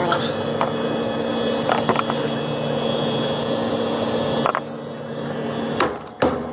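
Steady mechanical hum with a few sharp clicks and knocks of parts being handled; the hum drops off about four and a half seconds in, and louder knocks follow near the end.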